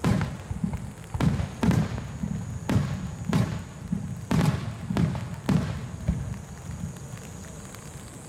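Aerial firework shells bursting one after another, about eight booms with rumbling echoes in the first six seconds, then thinning out. A steady patter of rain on an umbrella runs underneath.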